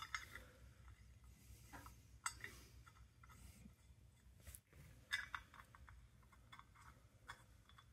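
Faint metal clicks and light scrapes of a bolt being turned in by hand through an ATV brake disc into its hub, scattered short ticks with a few louder ones about two and five seconds in.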